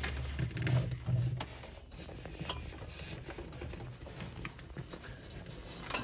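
A hand knocking, rubbing and scraping against the plastic liner of a refrigerator freezer compartment around the fan-motor opening. There are a few dull knocks in the first second and a half, then lighter scattered clicks and scraping. A low hum cuts off about half a second in.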